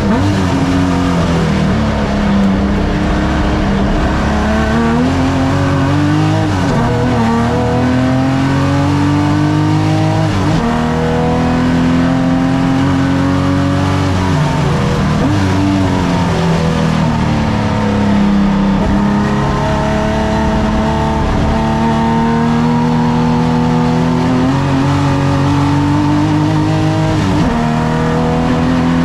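A classic saloon race car's engine at full throttle. Its pitch climbs steadily through each gear and drops sharply at every upshift, several times over.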